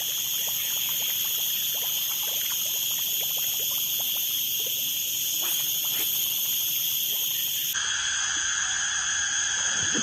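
Swamp-forest ambience: a steady high-pitched insect chorus with scattered frog calls and small clicks. The chorus changes abruptly about eight seconds in.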